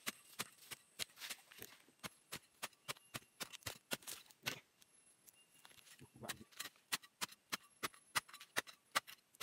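Machete-type digging blade chopping and scraping into soil and roots around a cu li (golden chicken fern) rhizome: a quick, uneven run of sharp strikes, about three a second, with a short pause about halfway.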